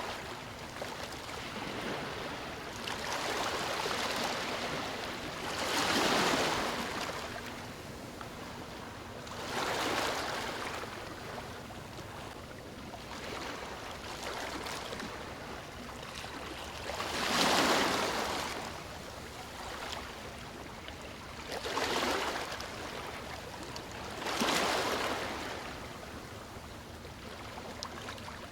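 Sea waves washing onto a beach, each swell of surf rising and ebbing every few seconds over a steady hiss, with the biggest breaks about a third and two thirds of the way in.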